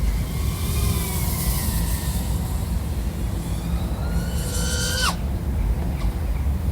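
An iFlight AOS 3.5 V5 FPV quadcopter's XING 1504 3100KV motors and propellers whining under a steady low rumble. The whine falls in pitch over the first two seconds, rises with throttle from about four seconds in, and drops away sharply just after five seconds as the throttle is cut.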